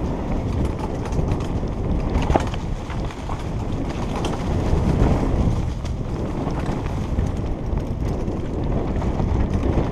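Wind buffeting a helmet-mounted camera's microphone, mixed with the rumble and rattle of a mountain bike riding down a rough grassy trail, with a few sharp knocks.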